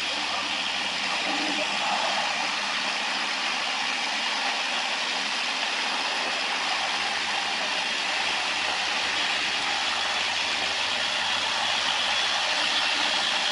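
Engine of a construction vehicle running steadily, heard mostly as a constant hiss with no change in pitch or level.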